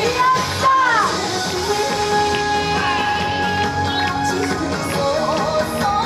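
Recorded yosakoi dance music playing loudly over a sound system, with held notes and a melody line that slides up and down about a second in.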